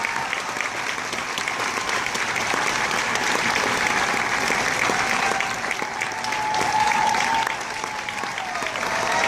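Audience applauding a children's choir, many hands clapping in a steady, dense patter.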